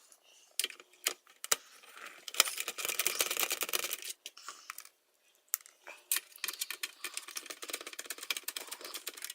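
Rapid clicking, rattling and scraping of an LCD monitor's power-supply cover being pried open by hand, in two spells with a short pause between.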